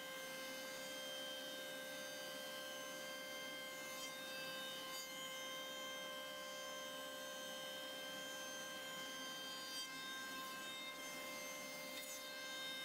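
CNC router spindle milling laminated MDF: a steady whine of several pitches over the noise of the cut.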